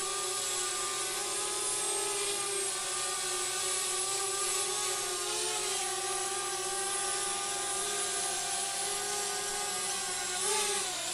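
DJI Spark quadcopter's propellers whining steadily in flight, the pitch wavering slightly a few times as the motors adjust.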